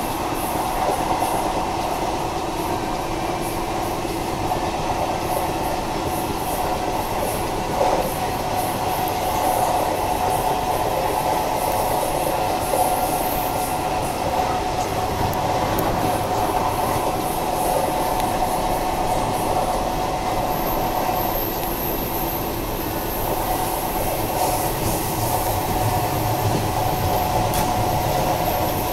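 Passenger train running steadily along the line, heard from on board: a continuous rumble and rail noise with a couple of faint knocks. A thin, high whine comes in about two thirds of the way through.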